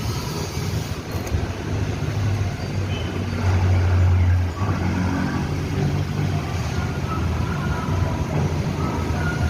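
A motor vehicle's low engine rumble nearby, swelling to its loudest about four seconds in and then easing off, as when a vehicle passes.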